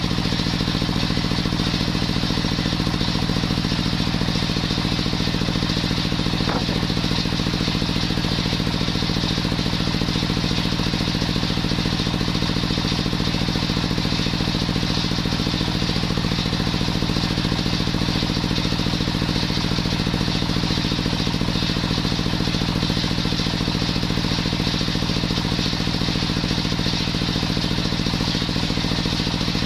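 Stationary engine running steadily, belt-driving a homemade table circular saw whose blade spins free with no wood in the cut.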